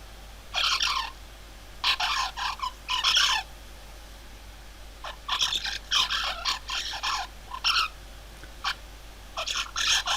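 Recording of a juvenile zebra finch's subsong, the first unformed singing of a young bird just starting to vocalize. It is low in amplitude and scratchy, coming in irregular bursts of half a second to nearly three seconds with short pauses between them.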